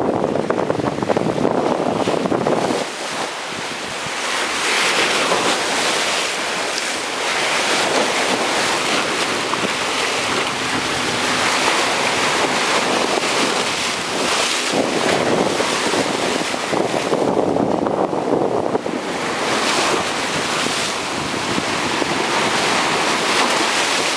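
High-tide surf breaking and washing against a rock seawall, with wind buffeting the microphone.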